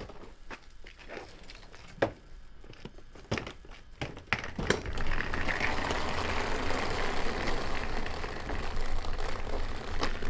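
Wheels of rolling hard-shell equipment cases rumbling steadily across a floor. Before that come a few separate clicks and knocks, and the rolling starts about four seconds in.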